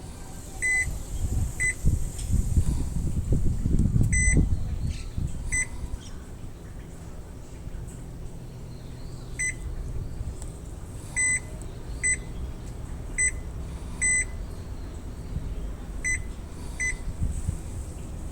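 Muji M-W42D fully automatic washing machine's control panel beeping: about a dozen short, high beeps at uneven intervals, over a low rumble that is strongest in the first few seconds.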